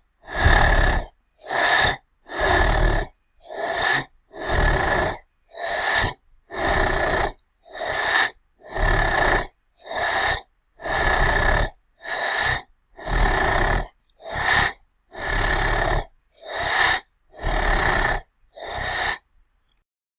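Angry monster breathing sound effect: a regular run of breaths, alternating longer and shorter, about one a second, stopping shortly before the end.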